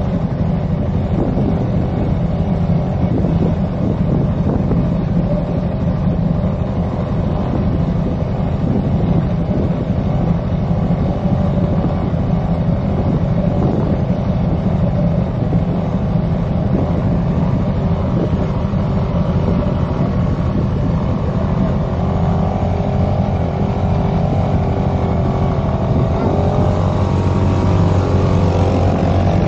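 Vehicle engine running steadily under load, its pitch climbing from about two-thirds of the way in as it revs higher.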